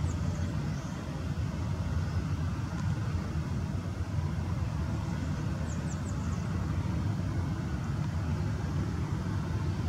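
Steady low rumble from a Boeing 737-800 during pushback, with a few faint high chirps.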